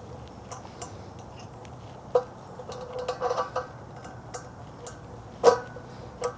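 Light metallic clicks and clanks of parts being handled. There are two louder strikes, one about two seconds in and one near the end, and each rings briefly. A short run of rattling clinks comes around three seconds in.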